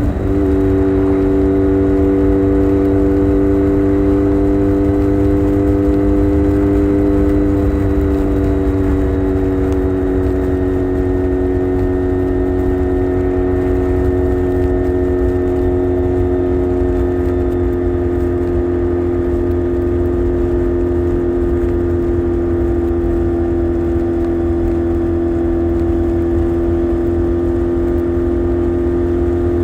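Honda VFR400R's V4 engine running at steady revs under way, its pitch holding nearly constant and easing down very slightly, over a heavy low rumble of wind and road noise. It is picked up by a phone in the rider's backpack.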